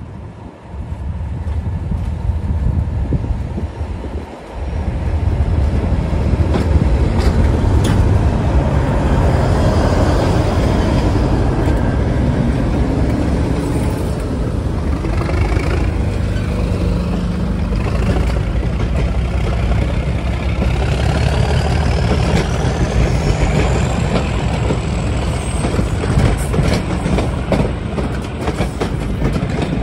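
British Rail Class 37 diesel locomotive with an English Electric V12 engine, running under power as it approaches and passes close by. Its train of coaches then follows, with a thin rising whine late on and the wheels clicking over the rail joints near the end.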